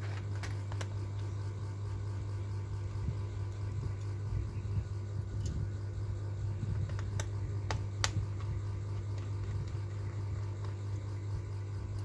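A steady low hum with a few sharp clicks, two near the start and several more around the middle.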